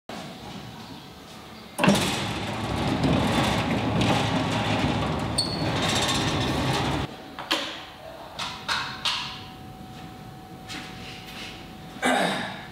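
A large door rolling open starts suddenly and runs as steady noise for about five seconds before stopping. Then come a few short knocks and one louder sweep near the end.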